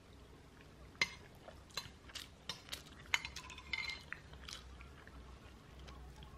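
Metal spoon clinking against a ceramic soup plate: a quick run of about a dozen small clinks, starting about a second in and stopping before the last two seconds.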